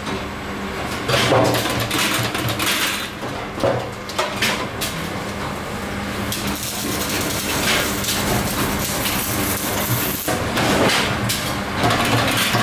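Sheet-steel motorcycle fuel tank knocking and clattering as it is handled at a spot-welding machine's copper electrode arms, with sharp metallic knocks scattered through and a steady low hum underneath.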